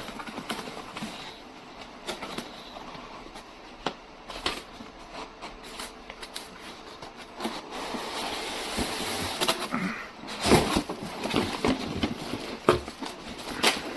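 Cardboard box and packaging being opened and handled: rustling with scattered clicks and knocks, and a few louder knocks in the last few seconds.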